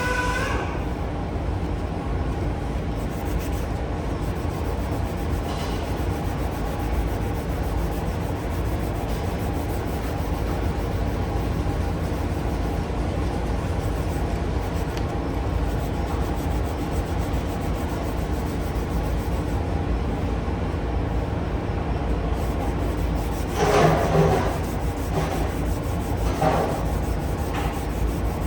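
Steady sanding and rubbing on a car bumper's painted surface as the scratch is worked away, over a low steady hum, with a couple of louder scrapes near the end.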